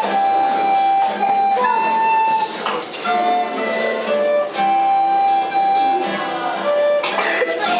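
A Christmas carol played on acoustic guitar with a melody of long held notes carried by violin and recorder.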